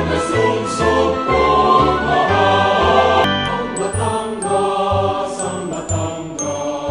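Background music with choir-like singing over a bass line; about halfway in, high chiming tones join.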